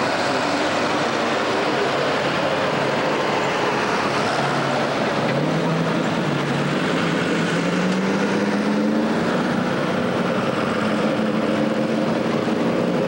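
Super Stock pulling tractor's engine running hard and steady at the start of a pull while hooked to the sled. Its pitch rises gradually about five seconds in and then holds higher.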